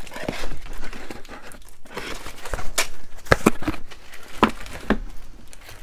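Packaging crinkling and rustling as items are handled and unwrapped, with scattered sharp clicks and a few knocks.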